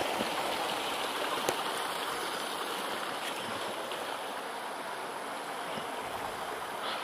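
Shallow rocky stream running over and between stones, a steady rushing hiss that eases slightly toward the end.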